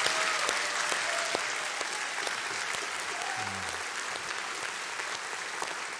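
Church congregation applauding, the clapping slowly dying down toward the end.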